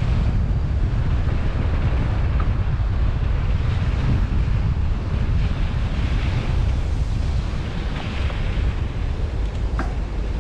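Wind buffeting the microphone, a steady low rumble, with a faint tick near the end.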